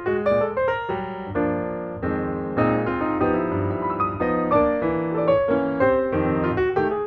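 Background piano music: a keyboard melody over chords, quick notes struck in succession.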